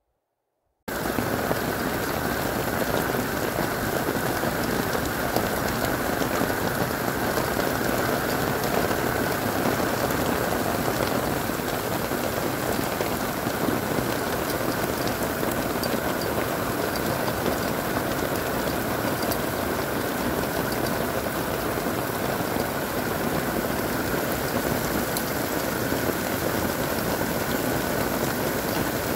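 Steady rain heard from inside an RV, a dense noise full of individual drops ticking. It starts abruptly about a second in.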